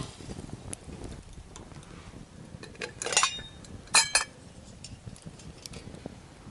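Metal cooking pot clinking as it is handled: two bright, ringing clinks about three and four seconds in, with light ticks around them.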